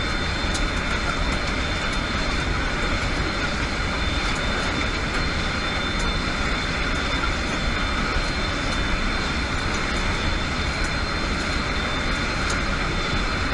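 Steady drone of a military transport aircraft's engines and rushing air, heard from inside the cabin at the open rear ramp, with a faint high whine held throughout.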